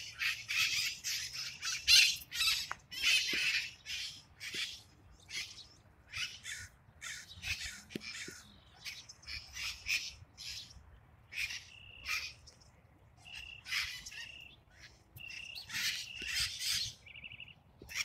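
A flock of feral parrots squawking in a tree: many harsh, screechy calls one after another, with a few short, clearer whistled notes in the second half.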